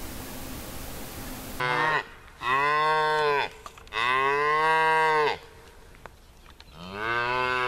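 Young calves mooing: four calls whose pitch rises and then falls, a short one followed by three longer ones, each of the long ones lasting about a second.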